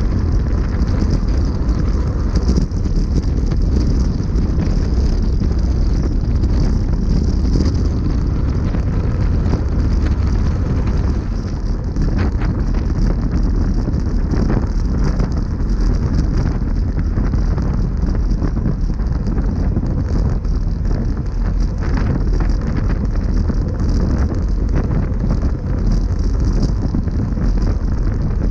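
Steady rumbling wind noise on a bike-mounted action camera's microphone as the road bike rides at speed.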